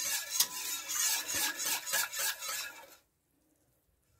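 Wire whisk scraping and stirring around a pot of semolina, sugar and water as it heats, in quick even strokes of about four to five a second. It fades out and drops to silence about three seconds in.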